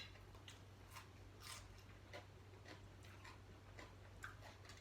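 Near silence with faint, scattered clicks of people eating: cutlery touching dishes and chewing, over a low steady hum.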